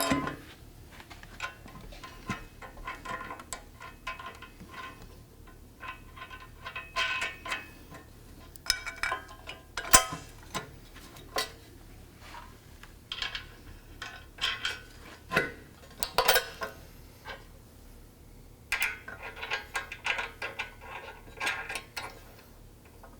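Steel tire carrier extension and its bolts clinking and clattering as they are handled and fitted onto the tire carrier, with short runs of rapid metallic clicks.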